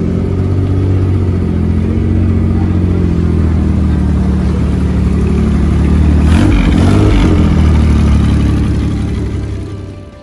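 Maserati sports car's engine running at low revs as the car rolls slowly past, getting louder as it comes alongside, with a short rise in revs about six seconds in. It fades out near the end.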